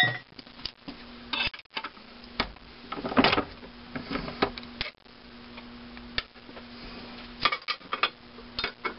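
Scattered metal clanks, clicks and clinks as a steel engine valve, its forming fixture and a ball-peen hammer are taken out of a cast-iron bench vise and set down. The loudest clatter comes about three seconds in, and a faint steady hum runs underneath.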